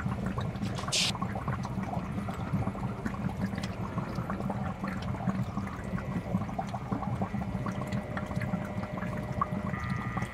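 Water running and splashing steadily into a small temple pond, with a constant patter of small drips and splashes.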